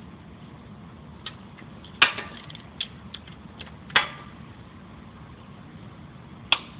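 A few sharp metallic clicks and clinks from a breaker bar and socket being fitted and worked on a bolt in a transmission drive flange. The loudest come about two and four seconds in, over a steady low hum.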